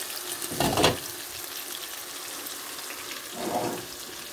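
Chicken and chopped vegetables simmering and sizzling in an uncovered pot: a steady hiss. A clunk comes just under a second in, and a softer knock near the end.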